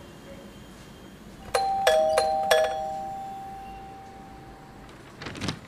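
Doorbell chime ringing once: four quick struck notes on two pitches, the tones ringing on and fading over about three seconds. A brief rustle near the end.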